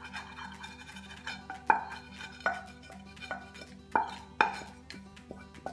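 A utensil knocking and scraping against a frying pan as diced ham is pushed out of it, a series of sharp clanks that ring briefly, irregularly spaced. Faint background music underneath.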